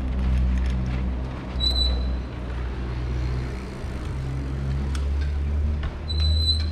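City street traffic heard from a moving bicycle: a steady low, engine-like rumble. Two short high-pitched tones break through it, a brief one about two seconds in and a longer one near the end.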